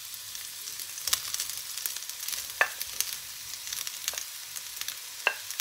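Shredded ginger, chili and wood ear mushrooms sizzling in oil in a frying pan, a steady hiss. A few sharp clicks come through as a utensil scrapes the mushrooms off a plate into the pan.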